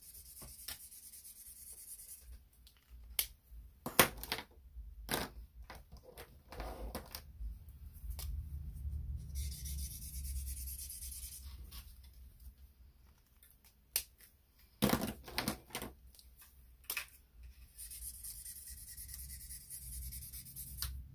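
Felt tip of a Stampin' Blends alcohol marker scratching back and forth across vellum cardstock in short stretches of zigzag scribbling, with several sharp clicks and taps in between.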